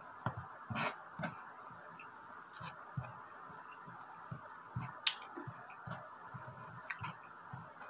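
Close-up eating sounds: short wet clicks and smacks of chewing, mixed with the squish of fingers pressing rice and stewed meat together on a wooden board.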